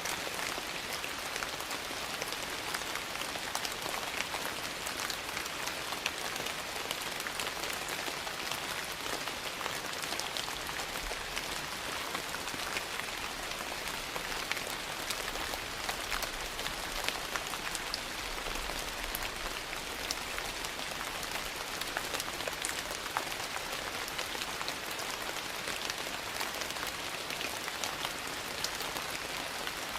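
Steady rain falling and pattering on surfaces, a constant hiss dotted with many small, sharp drop ticks.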